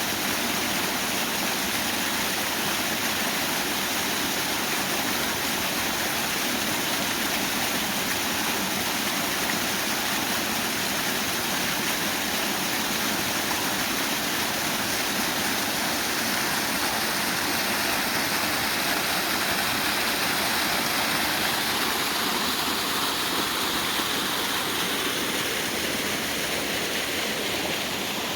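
Waterfall and creek water rushing: a steady, dense roar of falling water that does not let up.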